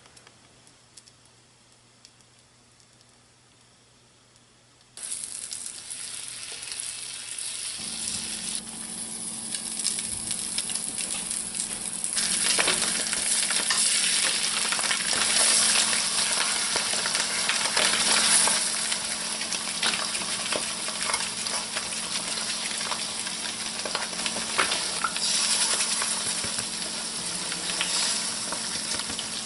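Near silence, then about five seconds in a frying pan starts sizzling abruptly: raw eggs frying in hot butter, with scattered crackles. The sizzle grows louder about twelve seconds in as more eggs are poured into the pan.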